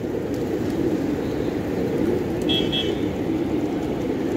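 Steady outdoor din of road traffic, with a short, high double toot of a vehicle horn about two and a half seconds in.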